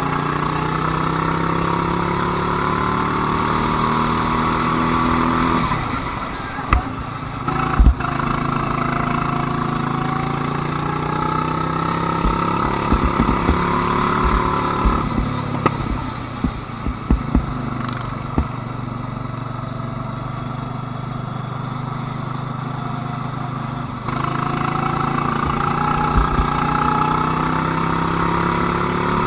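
Go-kart engine running at speed, its pitch rising and falling as it accelerates and slows through the corners, with a few sharp knocks and clatter along the way.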